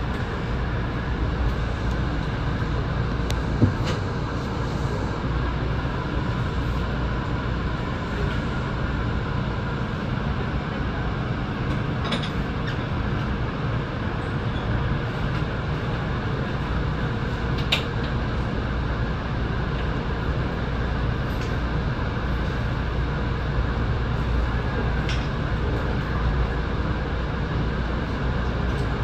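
Kintetsu 6820 series electric train standing at a station, its onboard equipment giving a steady low hum and hiss with faint steady tones. A few light clicks come at scattered moments.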